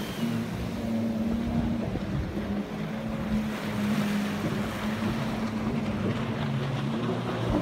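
Several jet skis running close offshore, their engines rising and falling in pitch as they throttle and turn, over small waves washing onto the beach.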